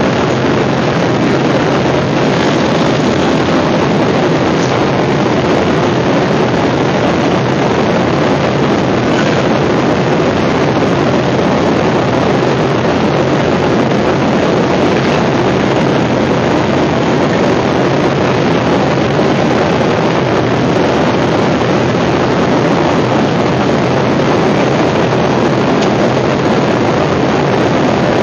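Airliner cabin noise at cruise: a steady, loud rush of jet engine and airflow noise with a low hum underneath.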